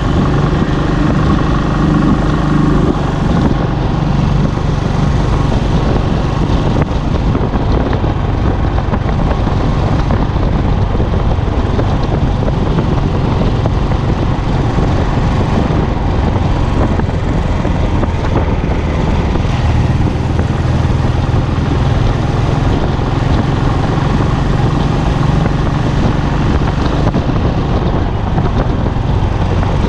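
Royal Enfield Classic single-cylinder engine and exhaust running steadily at highway cruising speed, heard from the bike's own handlebars, under a constant rush of wind and road noise.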